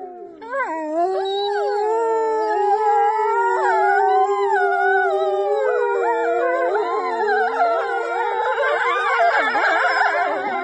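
Wolves howling: one long howl starts about half a second in, and more voices join it, overlapping at different pitches. Near the end several howl together in a dense chorus, with a woman howling along through cupped hands.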